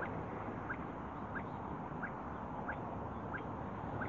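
See-see partridge calling: a steady series of short, rising whistled notes, about one and a half a second, over a steady background noise.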